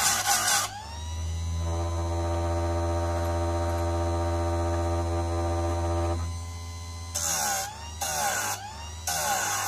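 Einhell electric chain sharpener grinding chainsaw chain teeth. A short grinding pass at the start is followed by the motor running unloaded with a steady hum for about five seconds while the chain is moved to the next tooth. Three short grinding passes come near the end, and the motor's pitch rises back after each one.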